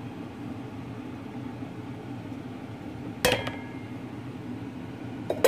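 A stainless-steel bowl clinks against a wire-mesh sieve about three seconds in, ringing briefly, then knocks again more lightly near the end. A low, steady room hum runs underneath.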